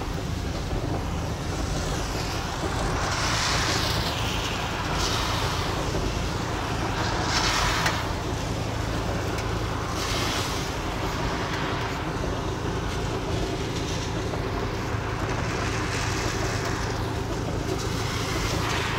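Steady low hum of a vehicle engine running, with other vehicles hissing past on the rain-soaked road several times, their tyres spraying water off the wet asphalt.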